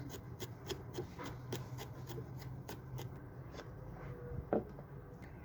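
Knife chopping on a cutting board in quick, even strokes, about three a second, over a faint low hum.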